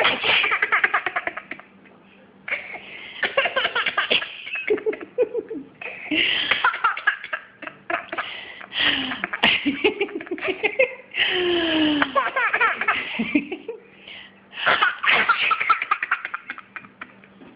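A baby laughing in repeated fits of quick, breathy giggles, about one every three seconds. Each fit answers a person's sneeze.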